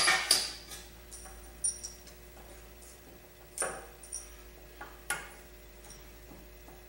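Sharp metallic clicks and clinks as hand tools and valve parts knock against the head of a Quincy 325 two-stage air compressor while its high-pressure valve is lifted out. One loud click comes right at the start, then about half a dozen lighter ones, some ringing briefly. A faint steady hum runs underneath.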